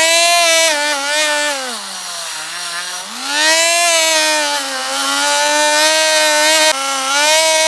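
Small hand-held rotary tool spinning a wire brush wheel against the inside of a stripped die-cast metal car body, a steady high motor whine. The pitch sags for about a second and a half as the wheel bogs under load, then picks back up about three seconds in.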